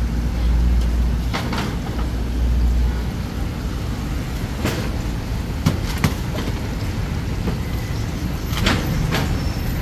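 Street traffic: a motor vehicle rumbles past during the first three seconds over a steady hiss of roadside noise, with several short sharp clicks and knocks scattered through.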